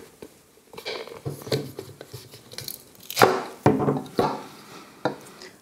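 Flat screwdriver prying the glued plastic diffuser dome off an LED light bulb: irregular clicks, scrapes and plastic cracking. The loudest burst comes about three seconds in, as the glue gives way.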